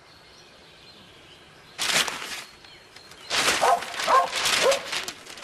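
A dog barking: one bark about two seconds in, then a quick run of barks near the end.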